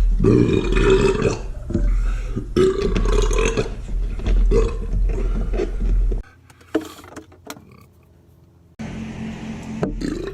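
A man burping: a run of long, loud, rumbling burps over a steady low hum, cutting off abruptly about six seconds in. A quieter stretch with a few clicks follows, then another steady hum starts near the end.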